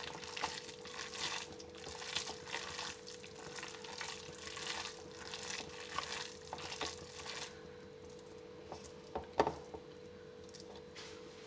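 A hand kneading and squeezing a wet mixture of grated vegetables and flour in a plastic bowl, giving irregular squelching and rustling strokes that stop about seven and a half seconds in. A few light taps follow, the sharpest about nine and a half seconds in.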